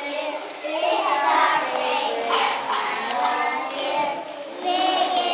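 A group of preschool children singing together in unison.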